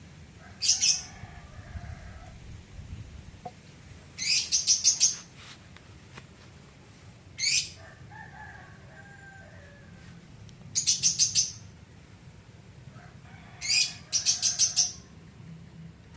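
A songbird calling with loud, high-pitched chirps, some single and some in quick runs of five or six, repeated every few seconds, with fainter, lower bird calls between them.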